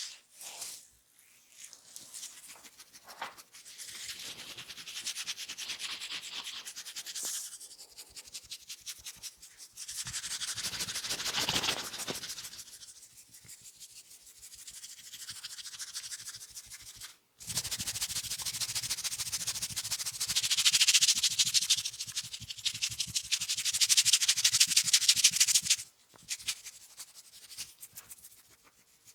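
Fingers rapidly scratching and rubbing through the hair and scalp close to the microphone: a dense, fast, scratchy rustle that swells and fades. It breaks off briefly just past halfway, then comes back louder.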